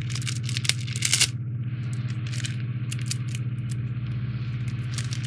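Clear plastic parts bag from a model kit crinkling as it is handled, with irregular crackles and small clicks, loudest about a second in. A steady low hum runs underneath.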